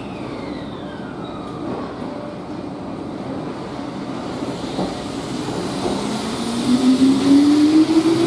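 Keihan 8000 series electric train pulling out of the station. Steady running noise gives way, about two-thirds of the way in, to a rising motor whine and growing wheel and running noise as the train accelerates.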